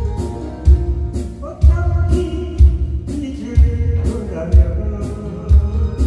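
A man singing into a microphone over a backing track played through PA speakers. The track has a heavy bass beat about once a second.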